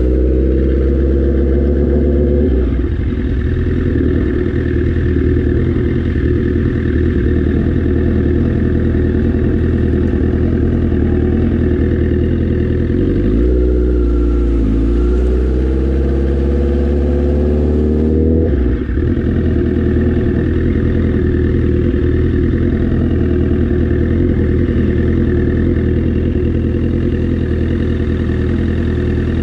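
Motorcycle engine running under way, heard from the bike itself. A little under halfway the revs dip, climb for a few seconds, then drop off sharply, and after that it runs steadily.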